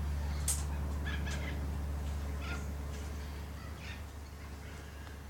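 Small aviary birds chirping in short, scattered calls, a handful over the first four seconds, over a steady low hum.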